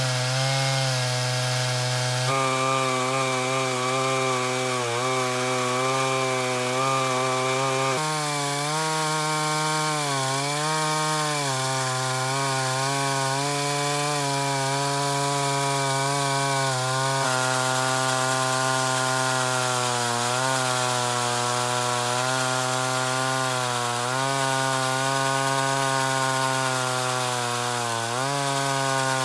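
Vintage Stihl 056 two-stroke chainsaw running at high revs while ripping lengthwise through a chestnut log in an Alaskan chainsaw mill, its note sagging briefly several times as the engine labours in the cut.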